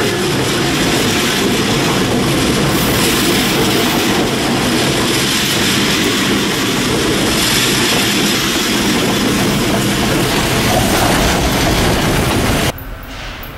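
Freight train with diesel locomotives rolling past at very close range: a loud, steady rumble of wheels on rails and running engines, which drops off sharply near the end.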